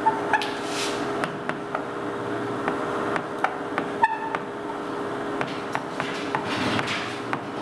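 Chalk writing on a chalkboard: irregular taps and short scratches, about two or three a second, with the sharpest knock about four seconds in. A steady hum runs underneath.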